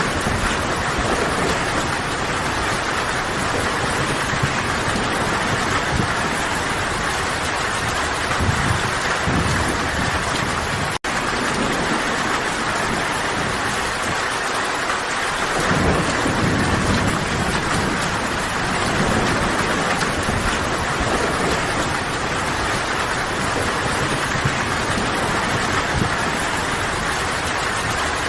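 Steady rain falling in a dense, even hiss, with low rumbles of thunder swelling now and then. The sound cuts out for an instant about eleven seconds in.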